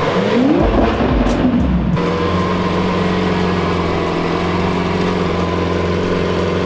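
Lamborghini Centenario's 6.5-litre V12 running, with a short rise in revs near the start, then a steady idle from about two seconds in.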